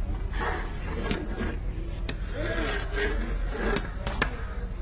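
A long-handled spatula scraping and turning biryani rice in a large metal cooking pot, with sharp clacks of metal on the pot every second or so.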